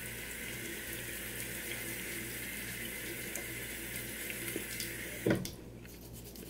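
Water running steadily from a bathroom sink tap, then shut off suddenly about five seconds in, with a short loud sound as it stops.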